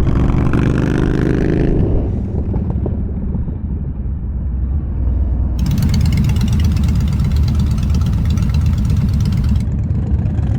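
Yamaha Bolt's air-cooled V-twin engine running under way, heard from the rider's helmet, with the revs climbing in the first couple of seconds. For about four seconds in the middle a loud rushing hiss of wind over the microphone joins the engine.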